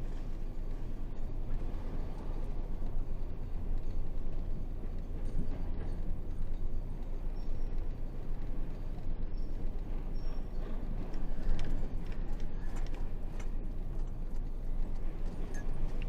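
Isuzu 8x4 heavy truck's diesel engine running steadily, with a few knocks and rattles about two-thirds of the way in.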